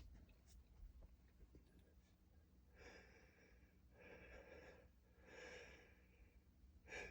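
Near silence with a man's faint breathing: three soft breaths a little over a second apart in the second half, and a short one at the end.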